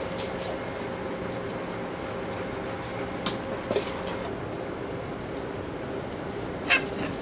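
A puppy gives one short, high-pitched yip near the end, over a steady faint hum, with a couple of soft knocks around the middle.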